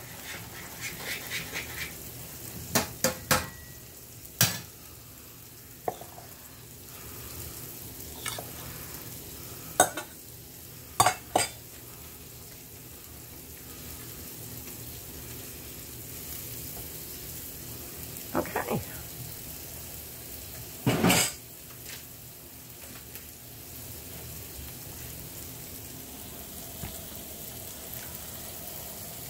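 Meatballs sizzling steadily in a frying pan, with scattered sharp clinks and knocks of a metal ice cream scoop against a stainless-steel mixing bowl.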